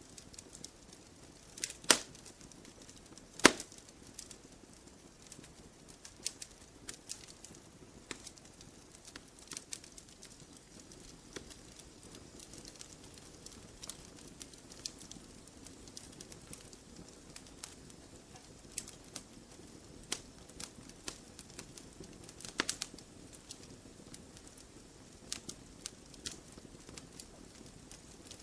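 Wood campfire crackling: irregular sharp snaps and pops from burning logs over a soft low hiss. Two loud pops come about two seconds in and a second and a half later, and another about three-quarters of the way through.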